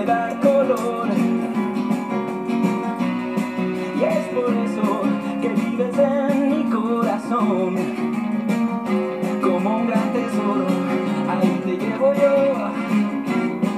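A song with strummed acoustic guitar and a singing voice, playing steadily.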